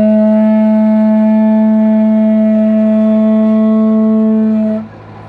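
Ligawka, a long wooden horn made of hollowed and glued halves, blown in one loud, steady note of nearly five seconds. The pitch scoops up at the start and the note stops cleanly near the end.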